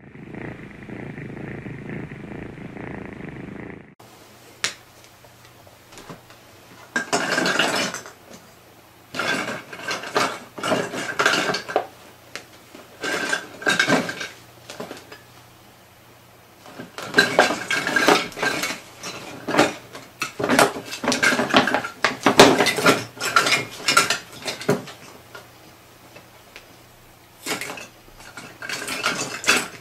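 Small Christmas ornaments clinking and rattling against each other and a clear jar as a cat bats and kicks at it on a carpet. The rattling comes in irregular bursts of a second or two with short pauses between. It follows about four seconds of a steady, muffled opening sound.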